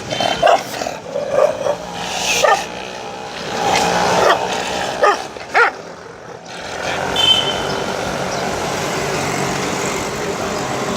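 Street dogs barking in short, sharp, separate barks through the first six seconds as they jostle over food. From about seven seconds in, a steady vehicle engine noise takes over.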